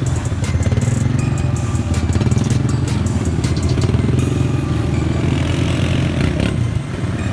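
ATV engine running hard and steady as the four-wheeler pushes through deep muddy water, with scattered clatter over it.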